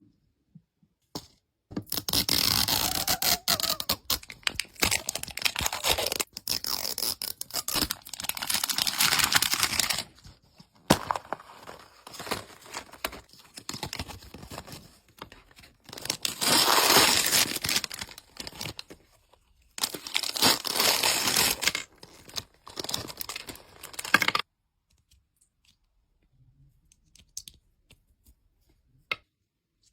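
Plastic packaging of a Zuru Mini Brands toy capsule being torn open and crinkled in several bursts, then stopping about three-quarters of the way in, leaving a few light clicks.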